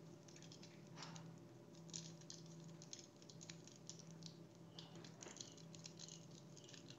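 Faint crinkling and crackling of aluminium foil being wrapped around a pencil by hand, in scattered small rustles.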